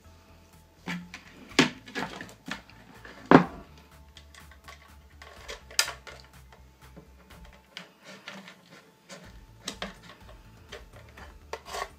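Plastic emergency-light housing and parts handled on a wooden tabletop: irregular clicks and knocks, the loudest about three and a half seconds in.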